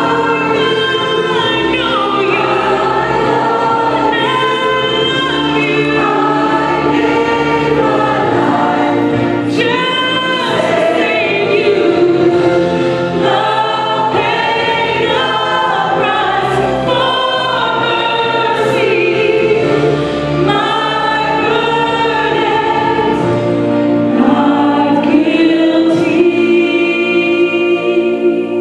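A woman sings a gospel solo through a microphone, with a church choir singing behind her.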